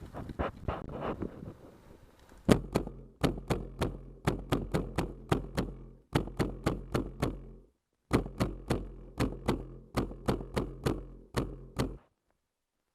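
HPA-powered airsoft rifles firing rapid semi-automatic shots, each a sharp pop or crack, about three to four a second, in strings broken by short breaks.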